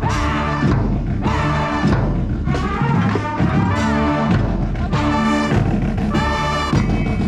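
Marching band brass section playing live: loud held brass chords in short phrases, each separated by a brief break.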